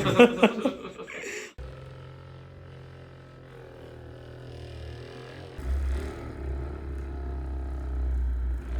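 Brief talk at the start, cut off sharply, then a steady low hum that becomes louder about halfway through.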